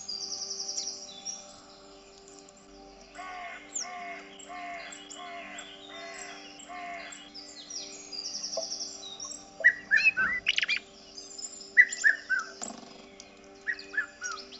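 Several small birds chirping and calling. A quick high trill comes at the start, then a run of six evenly spaced calls, then loud, sharply falling chirps in bursts in the second half.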